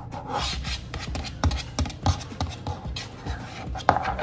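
Hands rubbing and tapping on a red plastic plate close to the microphone: irregular scrapes and a scatter of sharp taps.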